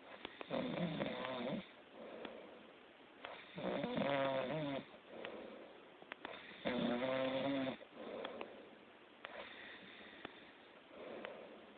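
A person snoring loudly: three loud snores about three seconds apart, with softer breaths between them. The last few seconds hold only the softer breaths.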